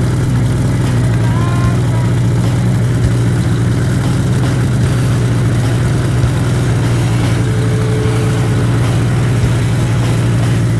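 Snowmobile engine running at a steady drone.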